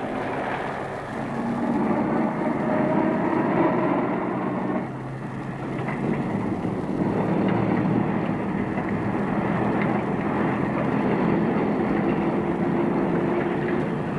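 Army trucks of a convoy moving off and driving on, their engines running under load, with the engine note dropping briefly about five seconds in.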